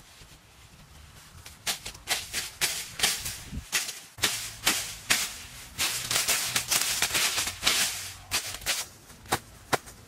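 Leafy scrub being pulled and cleared by hand: leaves rustle and stems snap in a rapid, irregular series of sharp cracks. It begins about two seconds in and thins out to a few cracks near the end.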